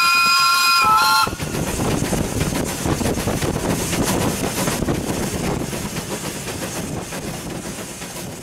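Hudswell Clarke steam locomotive's whistle blowing a steady two-note blast that stops about a second in. The engine then runs on with exhaust and rail noise, slowly fading away.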